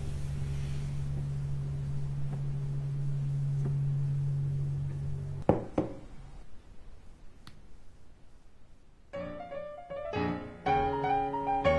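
A steady low hum that ends with a couple of clicks, then after a quieter stretch piano music begins about nine seconds in.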